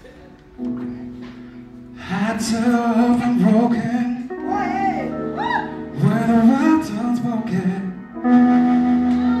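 Live jazz band playing: saxophone on the melody over keyboard, bass guitar and drums, with electric guitar. A held note opens, the full band comes in about two seconds in, and there is a brief break about a second before the end before the band picks up again.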